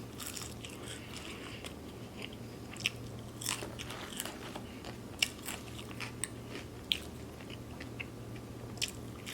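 Close-miked eating: a gyro being bitten and chewed, with scattered short wet clicks and crunches from the mouth.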